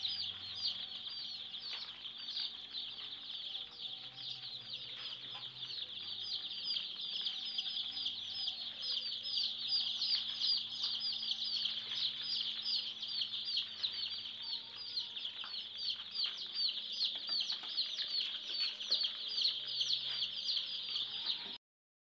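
A large brood of young chickens (chicks) peeping together: a dense, continuous chorus of short, high, falling cheeps. It cuts off suddenly near the end.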